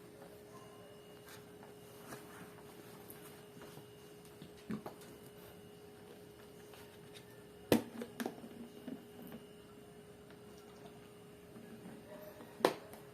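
Quiet room with a steady hum and a few sharp clicks or taps, the loudest a little past the middle and another near the end.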